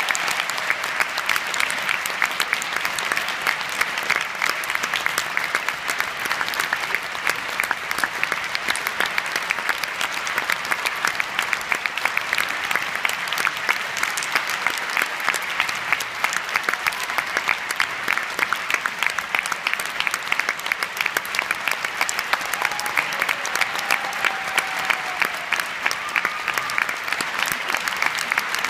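Theatre audience applauding steadily, a dense mass of many hands clapping for the dancers' curtain-call bows.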